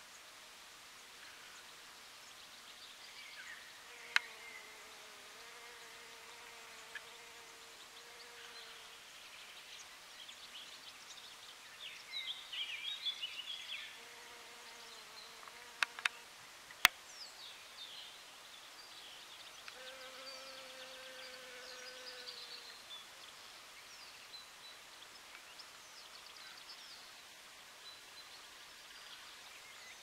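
Honeybee buzzing in flight in three passes of a few seconds each, over a faint outdoor background with scattered bird chirps. A few sharp clicks are the loudest sounds.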